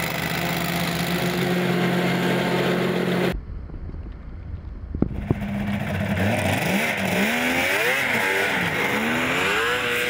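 Snowblower engine running steadily. After a sudden cut about three seconds in and a couple of sharp knocks, a snowmobile engine revs, its pitch sweeping up and down as it pulls away across the snow.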